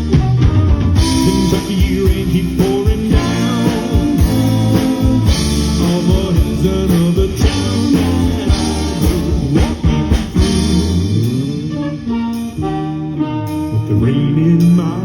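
Live band playing a slow country-pop ballad, with electric guitar and a lead vocal over bass and drums.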